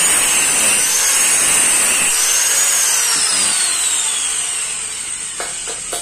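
Electric angle grinder running at speed, its high whine dipping briefly twice, then winding down with a steadily falling pitch over the last few seconds.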